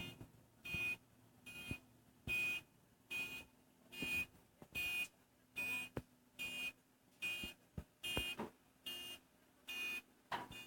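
Reversing alarm beeping steadily, short high beeps at about one every 0.8 seconds, over a faint low steady hum: the warning that the machine is backing up.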